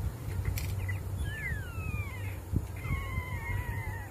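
Two drawn-out animal calls, the first falling steeply in pitch, the second held and sliding slightly lower toward the end. Underneath are a steady low hum and a few small knocks of plastic toys being handled.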